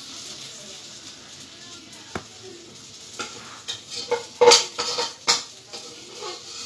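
Kitchen utensils and dishes knocking and clinking while food is handled: one sharp click about two seconds in, then a run of separate knocks and clinks, loudest about halfway through.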